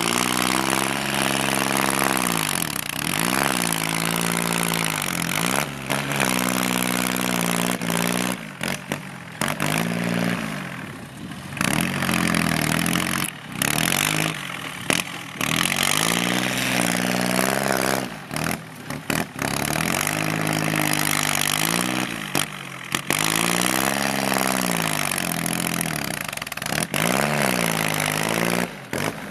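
Kubota L3608 tractor's diesel engine with a loud aftermarket exhaust, revved up and down over and over as it pushes soil, the pitch rising and falling every two to three seconds. It is broken by several brief gaps.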